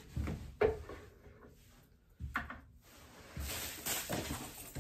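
Merch and packaging being handled: a few knocks and clunks as things are set down, then about a second and a half of rustling packaging near the end.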